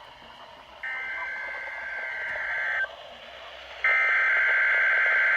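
NOAA Weather Radio's SAME digital header for an Emergency Alert System weekly test: two data bursts of two-tone code, each about two seconds long, a second apart, the second one louder.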